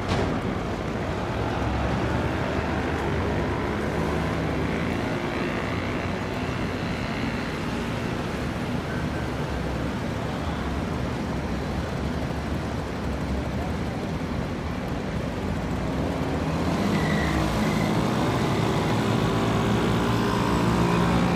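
Street traffic: a steady mix of engines and tyre noise from passing and idling vehicles. A heavier engine drone comes up louder for the last few seconds.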